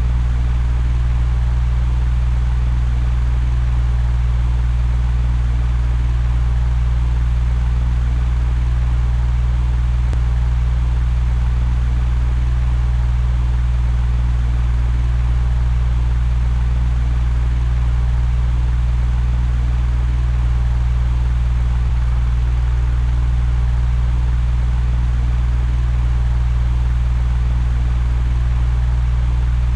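Electric fan running steadily: a low, even motor hum under a constant rush of moving air.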